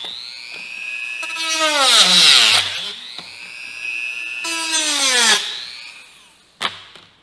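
Handheld rotary tool cutting through a thin plastic food-container cover. Its motor whine dips in pitch and comes back up twice as the bit grinds into the plastic, then spins down and stops near the end, followed by a sharp click.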